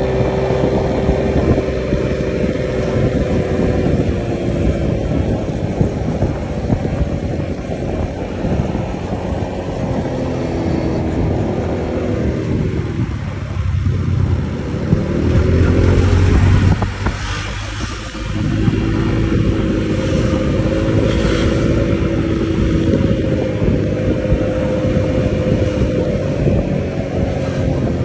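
Honda Click scooter's engine running under way, a steady drone over dense road noise. About twelve seconds in the engine note drops and a louder low rumble follows. The note climbs back and holds steady again a few seconds later.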